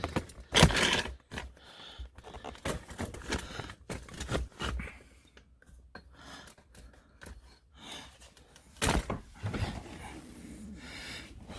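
Irregular clicks, knocks and rustling from hands working on the plastic steering-column trim, with louder handling bursts about a second in and again near the end.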